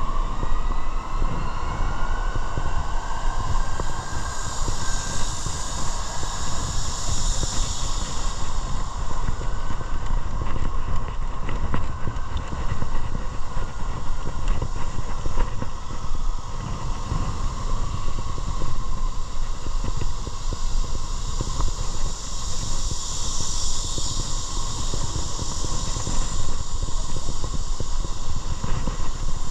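Steady rumble and wind noise of a vehicle on the move, with a faint whine that glides in pitch during the first few seconds.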